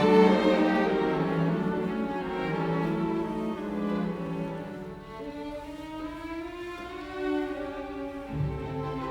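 Background music: slow bowed strings, violin and cello, playing held notes, with a low bass note entering near the end.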